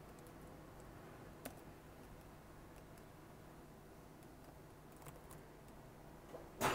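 A few scattered computer keyboard keystrokes over a faint steady low hum, with one louder, sharper click near the end.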